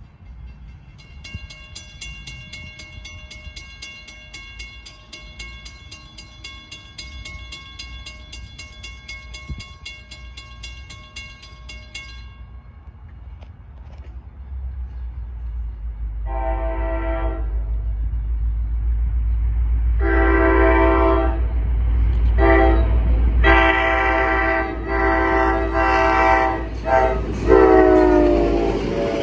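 A grade-crossing warning bell rings rapidly for about the first twelve seconds and then stops. An NJ Transit GP40 diesel locomotive approaches with a rising engine rumble, sounding its horn in the grade-crossing pattern of two long blasts, a short and a long. The last blast drops in pitch as the locomotive passes close by.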